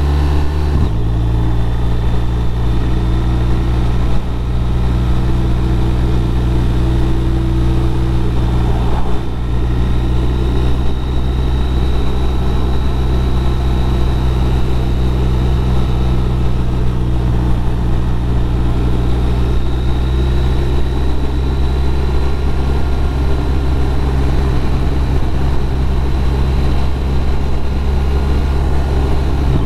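BMW R1200RT's flat-twin boxer engine running at a steady cruise, heard from the rider's seat with wind rush. Its note drops about a second in and then holds even.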